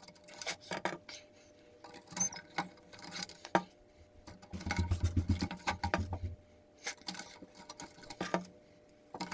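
Plastic zip ties being threaded through the holes of a plastic milk crate: scattered small plastic clicks and rattles, with a low rubbing rumble of the crate being handled about halfway through.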